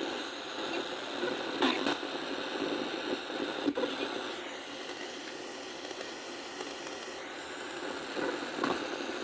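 Ghost box radio on the FM band giving out steady static hiss, with a few faint snatches of sound breaking through and a sharp click nearly four seconds in. The Arduino sweep does not work properly on FM on this box.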